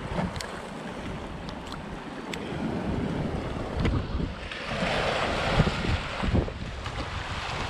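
Waves breaking and washing up the shore, with wind buffeting the microphone in gusts; a bigger wave rushes in about halfway through.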